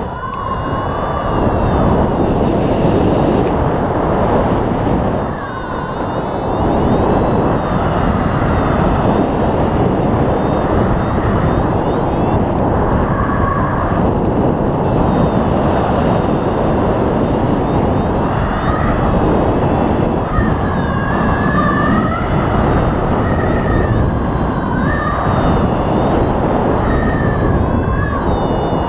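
Airflow of a paraglider in flight rushing over the camera microphone, steady throughout. A faint wavering tone rises and falls now and then over it in the second half.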